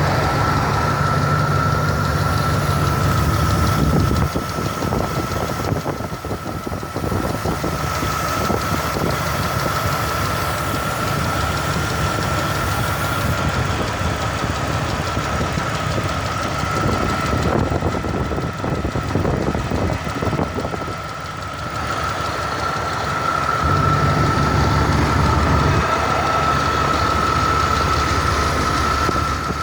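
Chrysler 318 Magnum V8 engine running with a knock from the engine, over a steady high-pitched whine. The low engine drone grows stronger for the first few seconds and again for a couple of seconds near the end.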